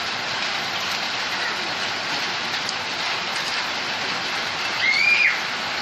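Heavy rain falling steadily on a street, a continuous even hiss of rain and running water. About five seconds in, a brief high-pitched call rises over it.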